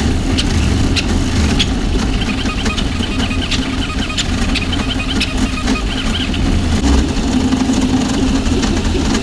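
A high-speed VzBoT 3D printer running a print: the stepper motors drive the toolhead in rapid moves with a steady mechanical hum, short pitched chirps as the moves change and frequent light clicks.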